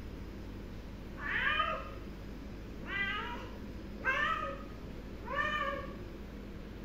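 Domestic cat meowing four times, each meow about half a second long and roughly a second apart.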